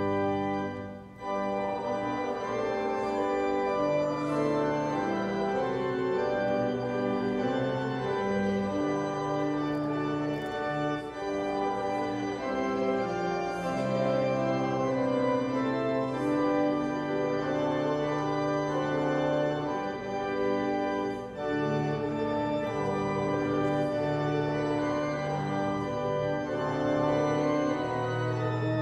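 Church organ playing a hymn in slow, sustained chords that change every second or two.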